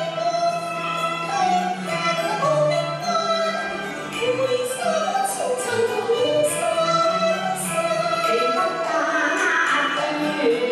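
Chinese operatic song sung by female voices, with a choir and instrumental accompaniment underneath.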